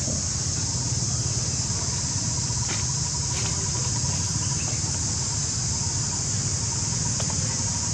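Steady high-pitched drone of insects, with a steady low rumble underneath and a few faint clicks about three seconds in.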